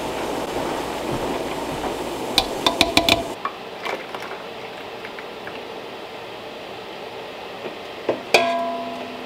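Jelly-canning kitchen sounds: a spoon stirring and knocking against an enamel pot, then hot jelly ladled through a canning funnel into small glass jars, with a sharp clink that rings on briefly near the end.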